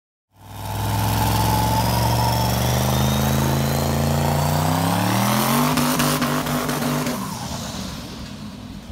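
Twin-turbo 6.0 L LQ4 V8 of a 1980 Camaro Z28 under hard throttle through a tyre-smoking burnout. The engine comes in suddenly just after the start, its pitch climbing steadily for about five seconds with a thin rising whistle above it. It holds briefly, then drops away and fades about seven seconds in as the car pulls off.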